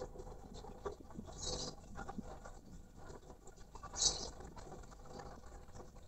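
Light, irregular pattering and scratching, typical of a caged male poksay mandarin laughingthrush hopping and moving about its cage, with two brief high-pitched rasps, about a second and a half in and about four seconds in; the second is the louder.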